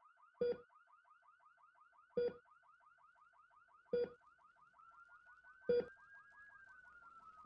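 Electronic sound design for a title sequence: a short pulse repeating about every second and three-quarters over a fast warbling chirp of about seven a second, like an alarm. From about five seconds in, a tone slides up and then slowly down.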